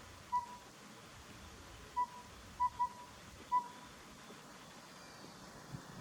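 Collared owlet singing: short whistled hoots, all on one pitch. One note comes just after the start; then, about two seconds in, a full phrase follows: a single note, a quick pair, and one more note.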